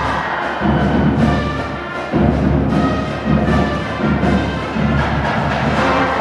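Orchestral-sounding music with timpani-like low drum hits and held brass tones.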